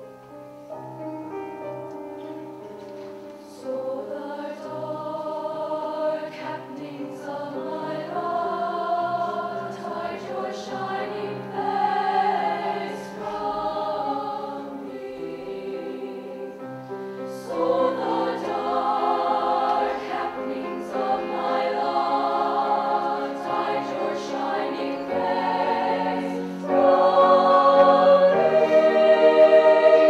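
Women's choir singing in parts with piano accompaniment, starting softly and building, with the loudest passage beginning near the end.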